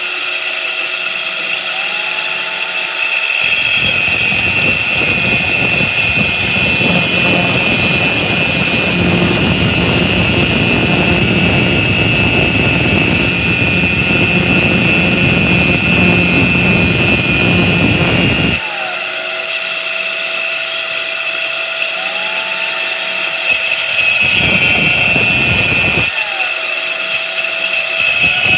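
Angle grinder with a cut-off disc running with a steady high whine, while a corded DeWalt drill spins a metal rod against the disc to turn down a replacement revolver firing pin. The drill's motor speeds up, then a long grinding of metal on the disc runs from about 3 s in to about 18 s; after a pause the drill speeds up again and grinds twice more, briefly, near the end.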